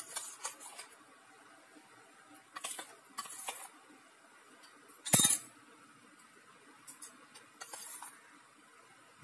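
Stainless-steel kitchenware clinking and scraping as a steel spoon scoops flour from a steel container into a steel tumbler. Scattered light clinks, with one louder clank about five seconds in.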